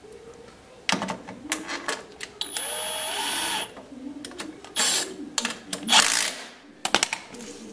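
Power driver running for about a second and a half as it drives in the bolt of a snowmobile idler wheel, with metal clicks of tool handling around it. Two short loud bursts follow near the end.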